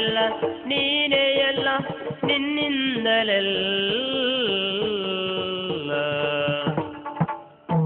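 Yakshagana accompaniment music: a sustained, wavering melodic line over drum strokes. It thins out and briefly drops quiet shortly before the end.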